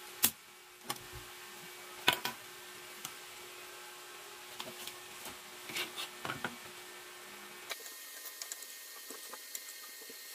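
Sharp clicks and light taps from desoldering work on a circuit board, a spring-loaded desoldering pump and tools knocking on the board and wooden bench. The two loudest snaps come at the start and about two seconds in, with a cluster of smaller taps near the middle, over a steady hiss.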